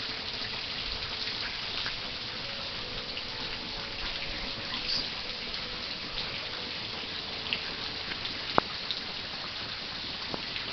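Rain falling steadily, with scattered drops ticking close to the microphone and one sharper tap about eight and a half seconds in.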